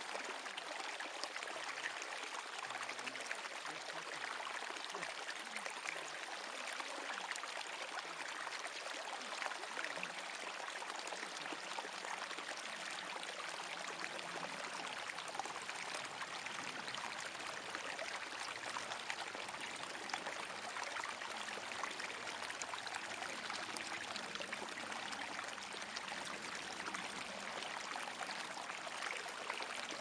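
Small meadow brook flowing steadily, water trickling and splashing over a small drop close by.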